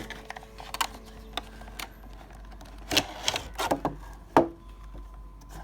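Close-up handling sounds of unboxing a JBL Go 3 speaker: scattered sharp clicks and light knocks of packaging and the speaker being handled. They come in a quick cluster after about three seconds, and the loudest knock, near the end, rings briefly.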